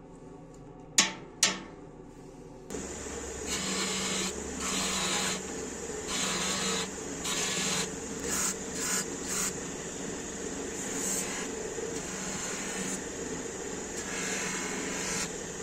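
Two sharp knocks about a second in. Then, just under three seconds in, a power tool starts and runs steadily, with repeated uneven rasping bursts as the steel or wood of the gouge is pressed against it.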